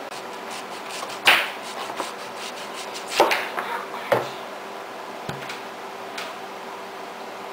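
Kitchen knife slicing through a red onion and knocking down onto a plastic cutting board: a handful of separate sharp knocks a second or so apart, with a few lighter ones between.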